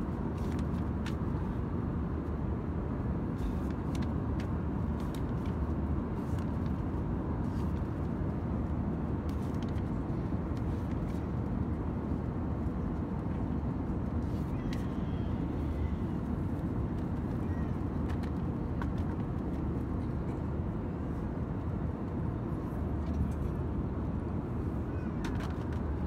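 Steady cabin noise of an Airbus A320-214 in flight: the low, even rush of airflow and its CFM56 engines, with a faint steady hum. A few light paper taps and rustles from handling a magazine's pages, the clearest just before the end as a page is turned.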